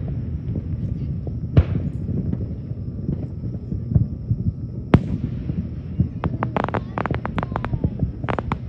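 Aerial fireworks shells bursting: a single bang about a second and a half in, another at about five seconds, then a quick run of many sharp crackling pops over the last two seconds.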